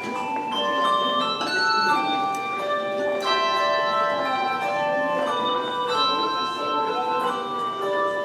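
Handbell choir playing a tune: bells of several pitches struck in turn, each note ringing on and overlapping the next.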